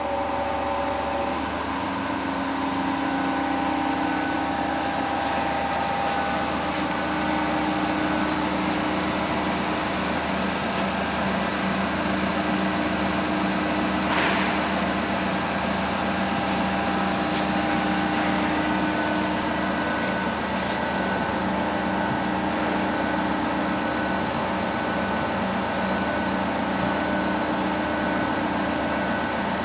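Estarta 301 CNC centerless grinder running steadily: an even machine hum with several held tones and a thin high-pitched whine over it.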